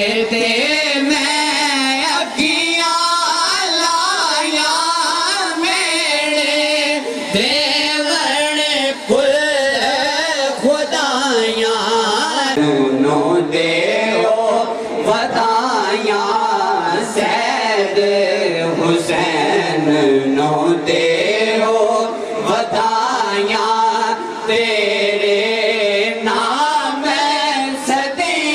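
Men singing a Punjabi Sufi kalam through a microphone sound system, the voices holding long, wavering, ornamented notes without a break.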